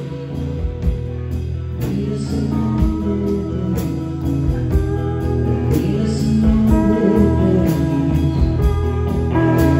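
Live rock band playing an instrumental passage: electric guitar lead over electric bass and a drum kit.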